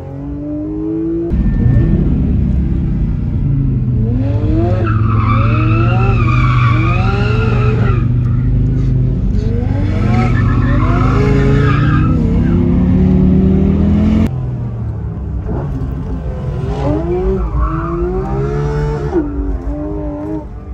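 Porsche 911 GT3 RS flat-six revving hard in repeated rising sweeps, with tyres squealing through drifts around the middle. The sound changes abruptly about a second in and again about fourteen seconds in.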